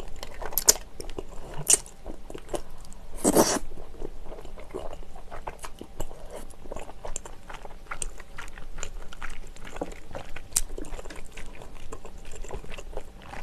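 Close-up eating sounds of saucy Chinese glass noodles: a loud slurp about three seconds in, after a couple of shorter ones, then steady wet chewing with many small clicking mouth sounds.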